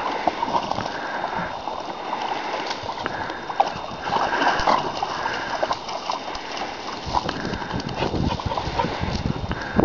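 Dogs swimming after a thrown stick, water splashing and sloshing irregularly around their paddling.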